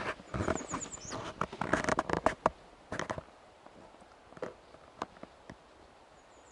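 Water splashing and dripping around an inflatable packraft being paddled on a calm lake, with light knocks against the raft. Irregular splashes come thickly for the first few seconds, then only a few scattered drips and taps.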